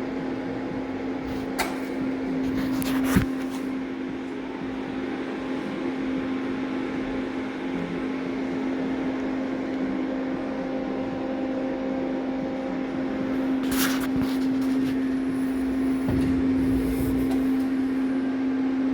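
A steady machine hum over a rough noisy hiss, with a few short clicks and knocks.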